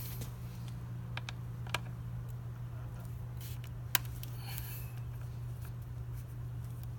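A few sharp, scattered clicks and taps of a hand tool working the headlight-bucket screws on a small motorcycle, the loudest about four seconds in, over a steady low hum.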